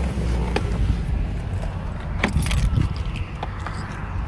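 Rustling and a low rumble from a phone being carried as a person climbs out of a car, with scattered light clicks and jingling, the sharpest a little past halfway.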